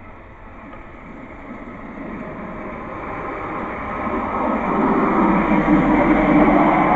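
Hi-rail track truck, a pickup with a service body riding the rails on guide wheels, running along the track. It grows steadily louder as it approaches and passes close by near the end.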